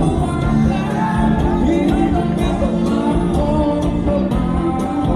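A live rock band playing with a singer, over a steady drum beat with regular cymbal strokes.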